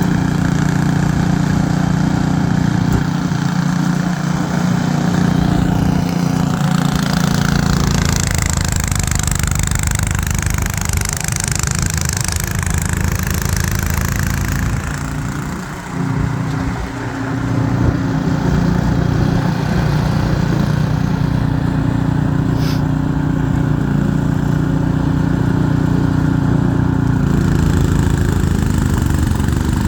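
Ariens 28-inch two-stage snowblower engine running steadily under load while clearing wet, heavy snow. Partway through, a hiss of churned and thrown snow rises for several seconds, then the engine note sags and wavers briefly before steadying again.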